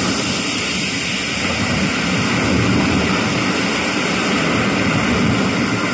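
Music played through a 2.1 set of salvaged Sony TV speakers with a small Panasonic woofer: a steady, dense rushing passage with a heavy low end and no clear melody.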